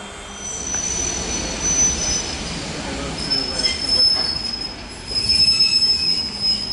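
EN57 electric multiple unit pulling into a platform, its wheels squealing high and steady over the rumble of the train. The squeal fades about two and a half seconds in, then a second, slightly lower squeal starts and holds.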